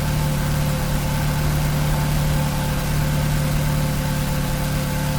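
BMW 428i's 2.0-litre turbocharged four-cylinder engine idling steadily, a car with a rough-idle complaint and a lit check engine light.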